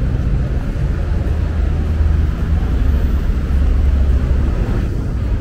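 Busy city street ambience: a loud, steady low rumble of passing road traffic.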